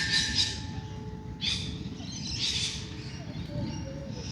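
Birds calling in a dawn chorus: several short, harsh, scratchy calls, the loudest right at the start and again about a second and a half in, over a low background rumble.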